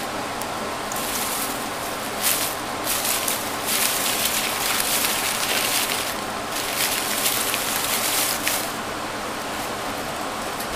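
Crumpled paper rustling and crinkling in uneven bursts as a kitten burrows through a recycling bin full of paper, over a steady background hiss.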